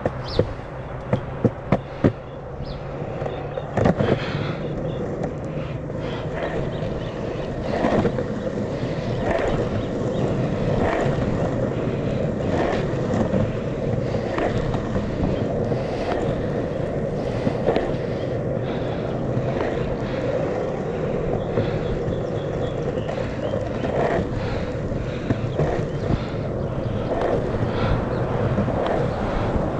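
Sector 9 skateboard wheels rolling on asphalt, a steady rumble with a knock every second or two as they cross cracks in the road. There is a quick run of sharp clicks at the start and a louder knock about four seconds in.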